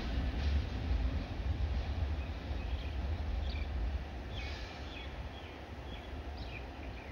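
Low rumble of a diesel locomotive pulling away and slowly fading. A few short, high bird chirps come in from about a third of the way through.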